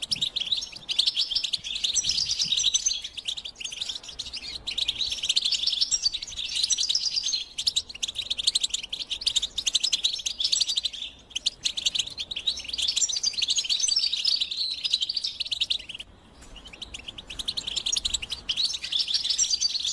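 European goldfinch singing: a long, fast, twittering song of rapid chirps and trills, breaking off briefly about eleven seconds in and again about sixteen seconds in before resuming.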